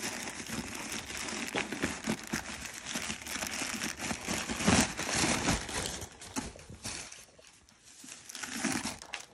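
White tissue-paper stuffing rustling and crinkling in irregular bursts as it is pulled out of a new handbag, quieter for a moment near the end.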